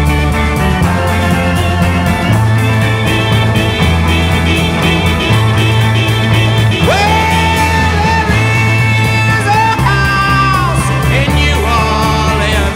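Rock song with bass and drums, and a sung vocal line coming in about seven seconds in.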